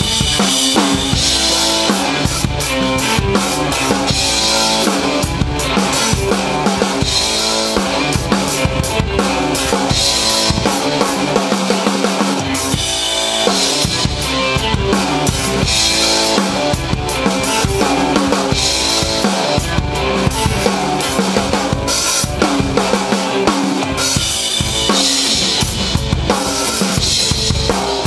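A drum kit played in a driving rock groove, with bass drum, snare and cymbals, together with an electric guitar playing chords and lines. The bass drum drops out for a moment near the middle and again near the end.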